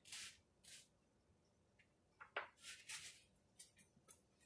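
Near silence with faint, scattered rustling and a few light clicks from handling in the kitchen.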